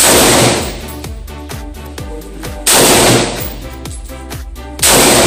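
Three single rifle shots from an M16-pattern rifle, about two and a half seconds apart, each loud and ringing out for a moment. Background music with a steady beat plays underneath.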